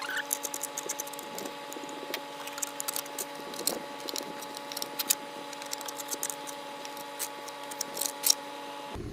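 Garden shovel scraping and chipping caked grass off the underside of a mower deck: irregular scrapes and clicks, several a second.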